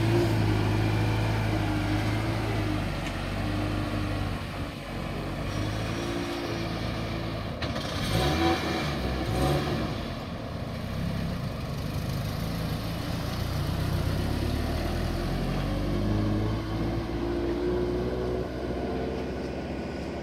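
Turbocharged Scion FR-S's flat-four engine running at low revs as the car pulls away, its pitch rising and falling with the throttle.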